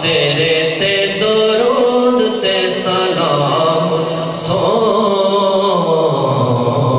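A man singing devotional Urdu kalam (a naat) solo into a handheld microphone, drawing out long notes that bend up and down in pitch.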